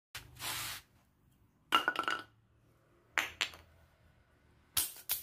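A few short knocks and clinks, four in all about a second apart, one with a brief ringing note: pieces of wood and tools being put down on a concrete floor.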